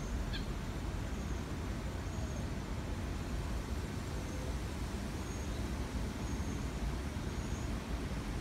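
Steady low rumble of outdoor background noise, with faint short high chirps now and then.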